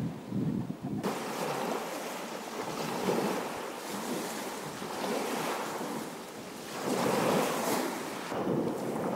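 Small sea waves washing in on a white pebble beach, swelling and easing several times and loudest about three seconds in and again near the end. Wind buffets the microphone for the first second.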